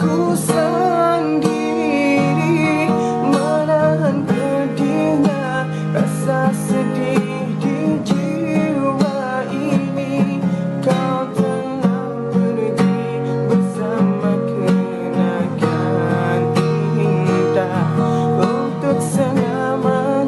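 Music led by acoustic guitar, strummed and plucked, with a wavering melody line over it.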